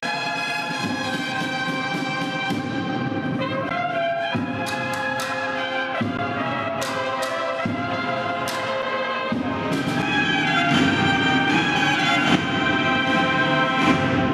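Brass band music: trumpet-like horns playing a melody over drums, with several sharp cymbal or drum strokes in the middle and the playing growing louder over the last few seconds.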